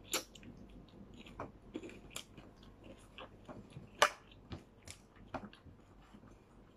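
Quiet chewing and small mouth smacks of someone eating rice and fried milkfish with her fingers, with irregular light clicks from fingers on the plate; the sharpest click comes about four seconds in.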